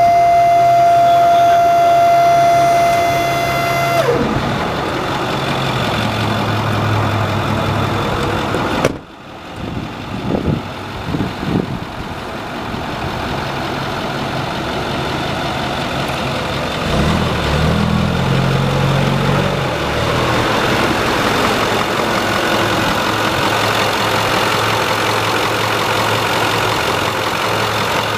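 A 2008 Ford F-450 Super Duty truck's engine running at idle. A steady high-pitched whine sits over it at first and stops suddenly about four seconds in.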